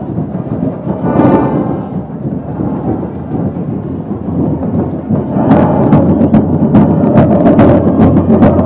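Stadium football crowd making a loud, steady roar, with fans' drums starting to beat rapidly, about four or five strokes a second, a little past halfway.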